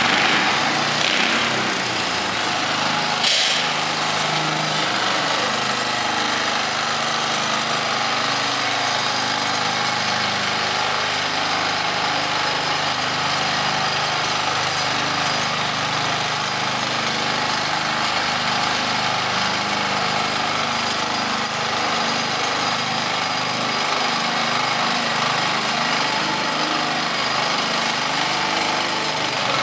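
A small engine running steadily, with one brief click about three seconds in.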